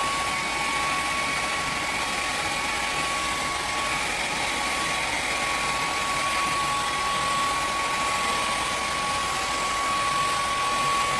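Revlon hair dryer running on its high setting: a steady rush of air with a steady high whine from the motor.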